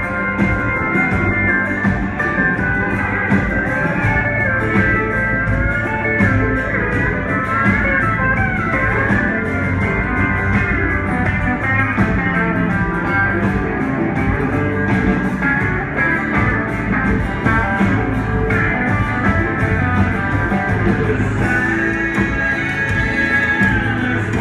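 Live band playing an instrumental stretch: a lead guitar bending and sliding notes over drums and keyboards, heard from far back in a concert hall.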